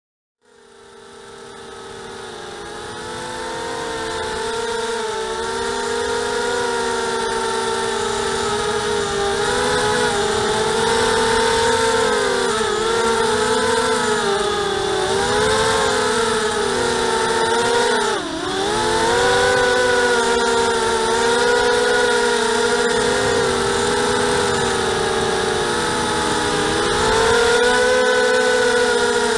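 ZMR250 racing quadcopter's four Cobra 2204 brushless motors with 5-inch Gemfan props whining, heard from the onboard camera. The pitch rises and falls with the throttle, with one sharp brief dip about two-thirds of the way in. It fades in over the first few seconds.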